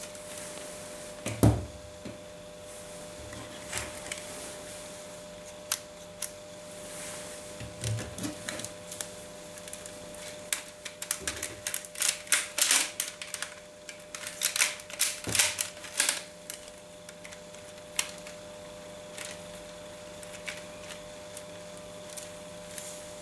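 Plastic Lego bricks and Technic parts clicking and clacking as a Lego AK-74u model is handled and its Lego magazine is picked up and fitted. Scattered single clicks and knocks, with two runs of rapid clatter about halfway through, over a faint steady hum.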